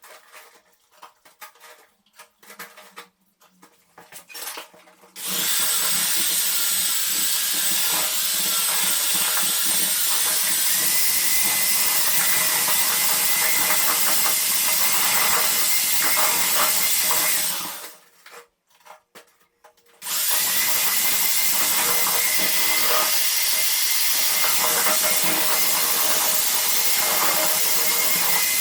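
Power drill with a mixing paddle running steadily with a held whine, stirring plaster. It runs in two long stretches, starting about five seconds in and stopping for a couple of seconds near the middle, with a few light knocks before it starts.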